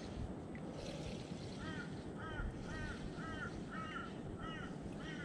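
A bird calling a steady series of short, rising-and-falling notes, about two to three a second, starting a little over a second and a half in, over steady low background noise.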